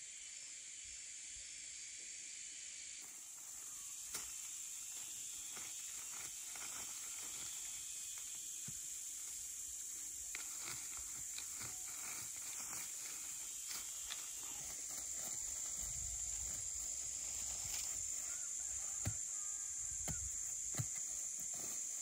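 Steady high-pitched drone of insects, with soft rustling and snapping of leafy plants picked by hand and a few louder knocks near the end.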